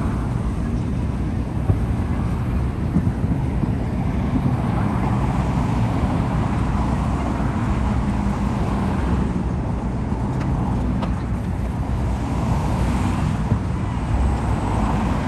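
Steady low rumbling outdoor background noise, with a few faint sharp pops scattered through it.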